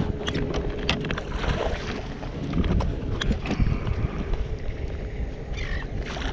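Wind buffeting the microphone on an open kayak, with scattered sharp clicks and knocks from handling the rod and gear on the hull. A short falling chirp comes near the end.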